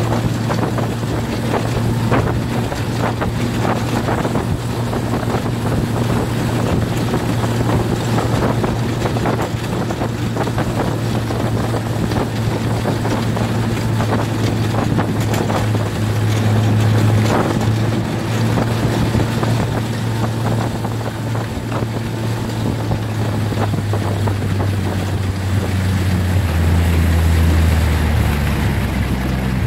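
Snowmobile engine running steadily under way, with the rush of the track and wind noise. Near the end the engine note drops lower as the machine slows.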